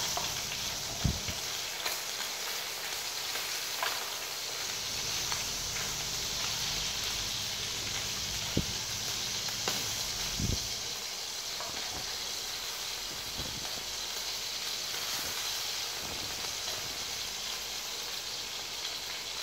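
Food sizzling steadily as it fries in oil in a frying pan on a portable gas stove, with a few knocks and scrapes of a spatula against the pan.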